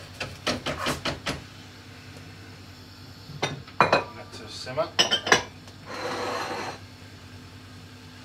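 Kitchen pots, pans and utensils clattering: a quick run of knocks in the first second and a half, then a cluster of sharp clinks and knocks in the middle. A short rushing noise follows about six seconds in.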